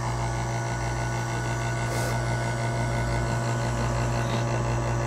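Electric vacuum pump running with a steady hum, drawing the air out of a vacuum chamber that holds wood blanks submerged in stabilizing resin.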